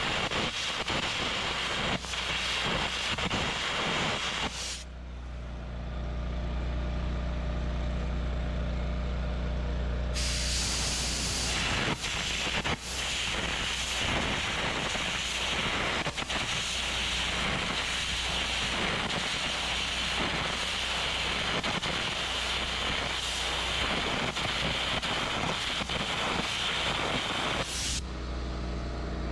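Air carbon arc gouging of a spring perch weld on a truck axle housing: a loud, steady hiss and crackle from the arc and compressed-air jet blowing out molten steel. It stops about five seconds in, leaving a steady low hum, starts again about five seconds later, and pauses briefly near the end.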